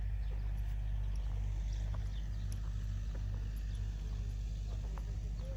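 Steady low drone of an excavator's diesel engine running, with a few faint ticks over it.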